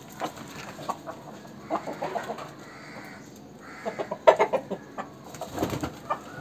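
Aseel roosters clucking in short clustered bursts, the loudest run a little past the middle.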